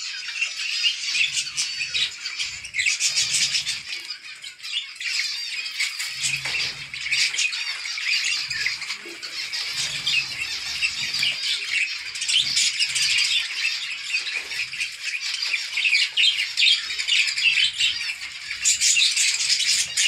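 A flock of zebra finches calling all together: a dense, constant chatter of many overlapping short, high chirps as the birds crowd onto a dish of food.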